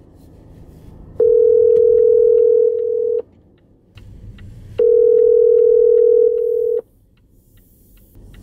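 Ringback tone of an outgoing phone call: a steady beep lasting about two seconds, heard twice with a pause between, while the call rings and is not yet answered.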